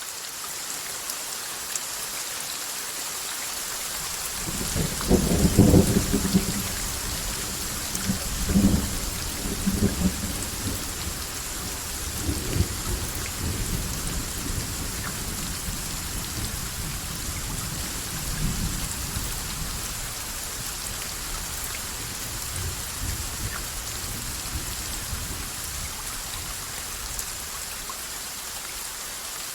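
Steady rain hissing. About five seconds in, a loud rumble of thunder breaks, and weaker rolls of thunder follow over the next fifteen seconds or so before dying away.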